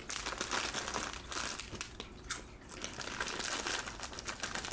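Snack wrappers crinkling and rustling as someone rummages through the food supply, in a dense, irregular run of crackles.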